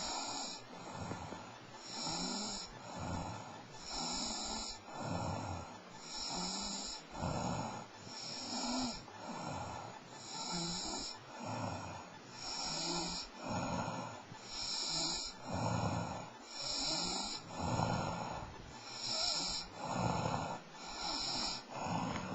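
A sleeping person snoring in a steady, regular rhythm, one rasping breath after another.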